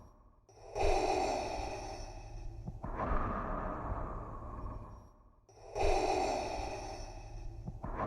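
Darth Vader's mechanical respirator breathing, the Star Wars effect made by breathing through a scuba regulator. Two slow, rasping breath cycles, each a brighter hissing draw followed by a duller hissing release, with a short pause before each.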